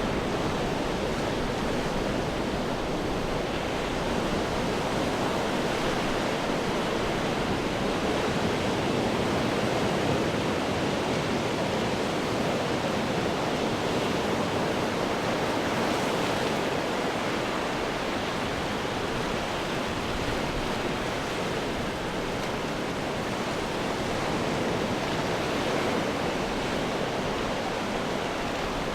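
Ocean surf breaking and washing over rocks: a continuous, even rush of water that never drops away.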